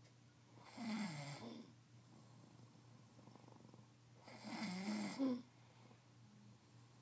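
A man snoring in his sleep: two snores, each about a second long and about three and a half seconds apart.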